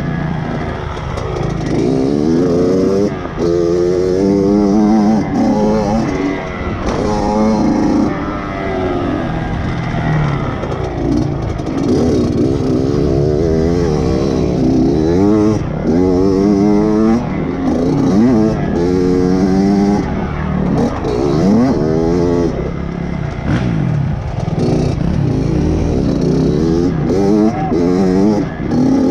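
Kawasaki KX dirt bike engine being ridden hard on a motocross track, close to the camera: the revs climb and drop again and again as the rider opens and shuts the throttle over jumps and through turns.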